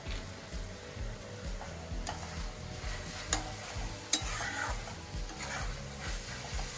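Metal spatula stirring and scraping vegetables around a metal kadhai (wok) over a gas flame, with a light sizzle of frying underneath. The spatula clinks sharply against the pan twice, about three and four seconds in.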